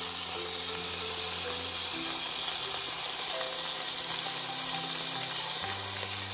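Beef roast sizzling steadily as it sears in a Ninja Foodi XL's pot on the high sear/sauté setting. Soft background music of held chords plays underneath, its chord changing about two seconds in and again near the end.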